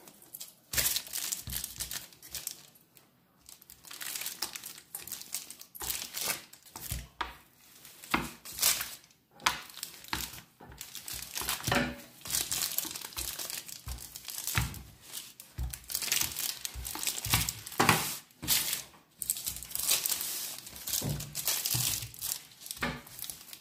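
A sheet of baking paper crinkling and rustling in irregular strokes as dough is pressed and rolled out on it with a plastic rolling pin, with a short lull about three seconds in.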